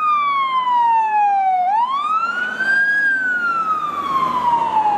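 Fire engine siren wailing. Its pitch rises quickly, then falls slowly, in cycles of about four seconds: a low point about two seconds in, a peak about three seconds in, and another low point near the end.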